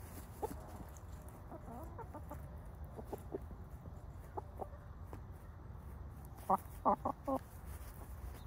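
Chickens clucking as they forage: scattered short clucks, then a louder run of four quick clucks near the end.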